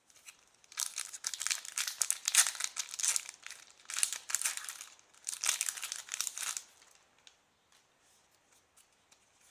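Foil booster-pack wrapper of a Pokémon trading card pack crinkling and tearing as it is opened. It comes in several bursts for about six seconds, then dies down to faint rustles.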